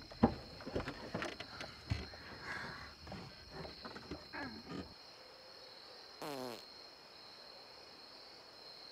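Crickets chirring steadily at night. In the first five seconds there are rustles, creaks and thumps from people shifting in car seats, the loudest a thump just after the start. About six seconds in comes a short falling, pitched sound.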